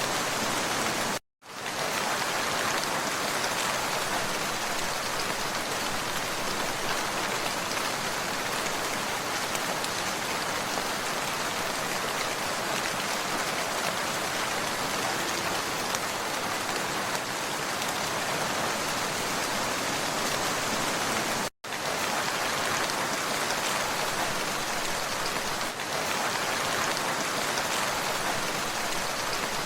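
Steady rain falling, an even dense hiss of drops. The sound cuts out completely for a split second twice, once about a second in and again about two-thirds of the way through, like splice points in a looped recording.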